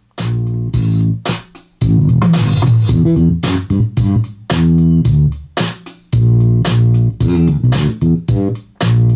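Guitar-and-bass music with a steady beat, played through a freshly recapped 1965 Packard Bell solid-state console stereo amplifier. No hum is left under it once the bad filter capacitors have been replaced.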